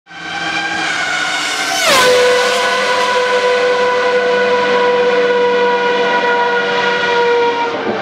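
High-revving Ferrari Formula 1 car engine, fading in. Its pitch falls sharply about two seconds in, as a car passing at speed, then holds a steady high note.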